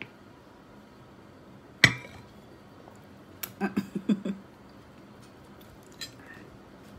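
A ceramic soup bowl is set down on the table with one sharp clink about two seconds in. About a second and a half later come a few short closed-mouth hums.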